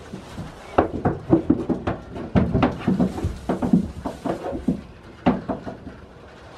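Goats' hooves knocking and scraping on a tub and on straw as a goat clambers up, a quick irregular run of knocks from about a second in until past five seconds.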